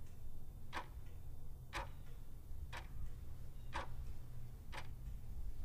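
Faint clock ticking steadily, one tick about every second, over a low hum.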